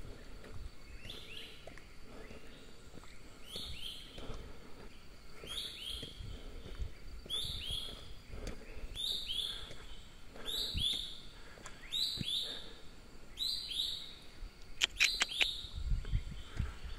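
A bird calling over and over in forest, a short sliding note repeated about every one and a half seconds, with a few sharp clicks near the end.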